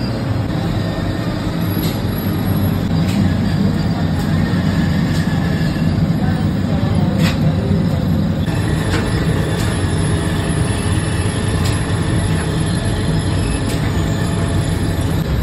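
Steady machinery noise from a Sangak bread production line, the dough sheeter, conveyor and tunnel oven running, with occasional light clicks and knocks.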